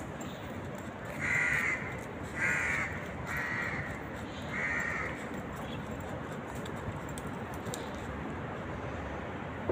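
A crow cawing four times in quick succession over steady background hum.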